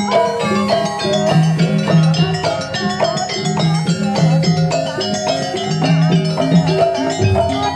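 Jaranan buto accompaniment music: a Javanese gamelan-style ensemble of tuned metal percussion playing quick, busy melodic patterns over drums.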